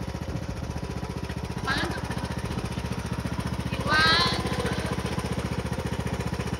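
John Deere lawn tractor engine running steadily with a fast, even chugging pulse.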